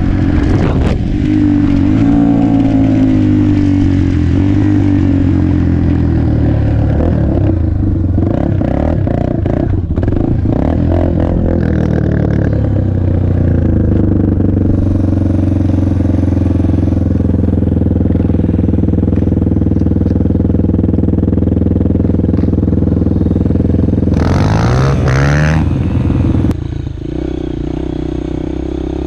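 Yamaha TTR230 dirt bike's engine running under way over rough grass, with rattling and clatter from the bike over bumps in the middle and a rising rev near the end. Just before the end it cuts to a Honda CRF150F's engine running steadier and a little quieter.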